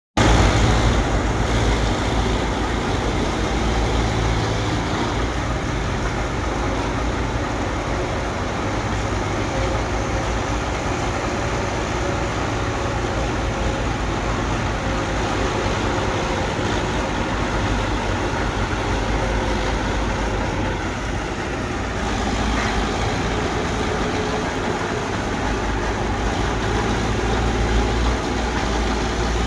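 Bulldozer's diesel engine running steadily, a continuous heavy low rumble.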